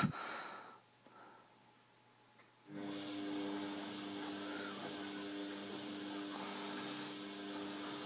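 Bosch WFF2000 washing machine's drum motor starts up about two and a half seconds in and then runs steadily with a whine, turning the drum on a slow tumble during the cool-down stage of a 90° cotton wash.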